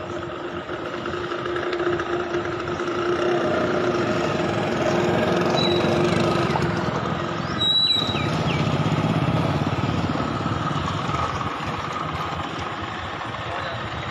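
Street traffic: motor vehicle engines running close by, getting louder toward the middle and easing off later, with a single knock about eight seconds in.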